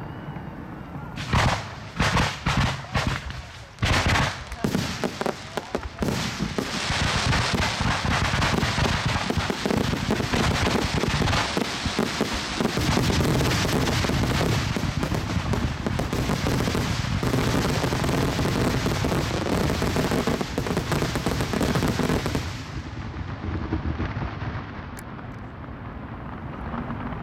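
Aerial fireworks bursting. A handful of separate sharp bangs comes first, then around sixteen seconds of dense, rapid bangs and crackle, which stops abruptly about 22 seconds in and leaves a much quieter background.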